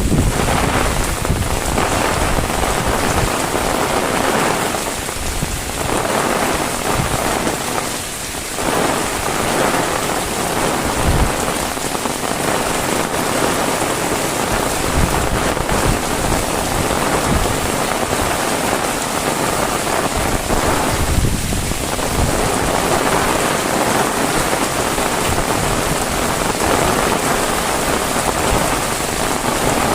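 Heavy rain falling steadily as a dense, even hiss, with a few brief low bumps.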